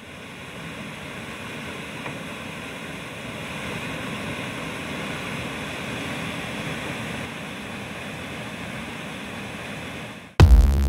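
Steady rushing water of a creek waterfall, fading in and growing a little louder. Near the end it is cut off by loud electronic music with a drum-machine beat.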